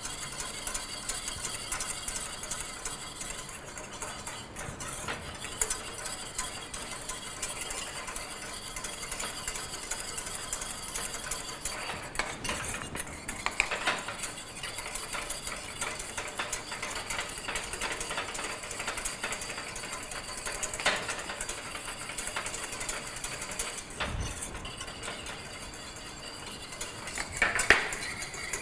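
Wire whisk beating egg yolks and water into a sabayon in a stainless steel saucepan, the base of a béarnaise sauce cooking slowly on low heat. The wires make a rapid, steady scraping and ticking against the pan, with a few louder clinks, the loudest near the end.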